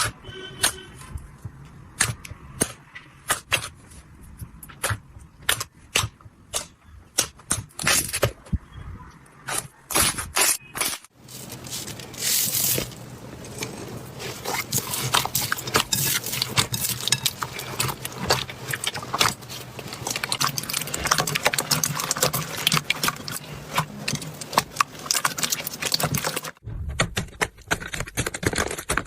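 Slime being handled and squeezed by hand, making irregular sharp pops and clicks, then after an abrupt cut about eleven seconds in a denser, continuous crackling; a second cut near the end brings a different crackly texture.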